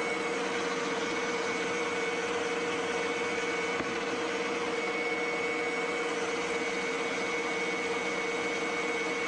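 Grouhy electric stand mixer running steadily, its spiral dough hook kneading a stiff yeast-free dough of brown flour and wheat germ. A constant motor hum with a thin high whine above it.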